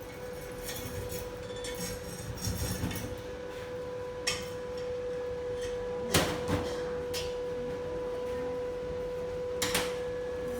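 Metal clanks and knocks, four sharp ones spread over several seconds after a stretch of lighter clatter, over a steady electrical hum.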